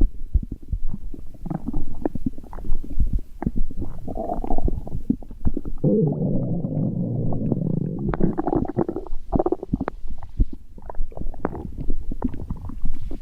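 A human stomach growling and gurgling: a run of irregular small pops and bubbling sounds, with a longer continuous low rumble about six seconds in.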